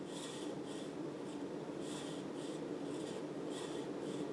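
Casablanca Marquis ceiling fan running on speed 6: a steady motor hum with a soft whoosh swelling about twice a second. Its bearings are worn and due for replacement.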